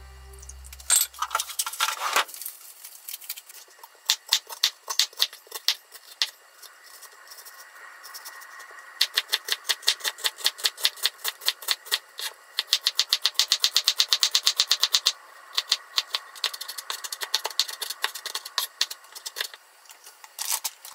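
Kitchen knife chopping an onion finely on a mango-wood cutting board: a few separate cuts, then fast even chopping at about five strikes a second for several seconds, then slower strokes. About a second in, a short pour of liquid into a pan.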